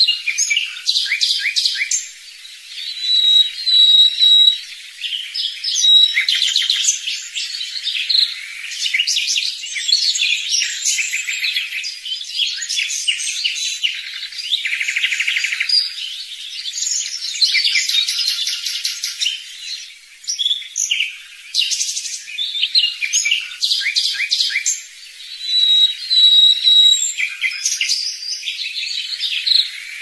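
Several songbirds singing at once: a steady chorus of overlapping chirps, fast trills and short whistled notes, with brief lulls between phrases.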